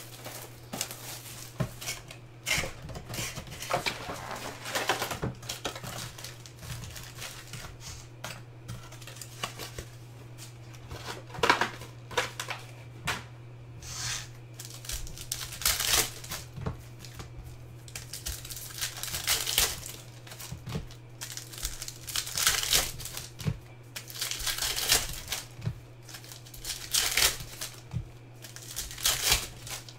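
Foil trading-card pack wrappers crinkling and tearing as the packs are handled, slit open and pulled apart, in irregular bursts. A steady low hum runs underneath.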